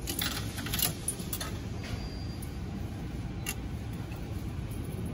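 Steady low rumble with a few light clicks near the start and one sharper click about three and a half seconds in, from the railway ticket vending machine at work and the station around it.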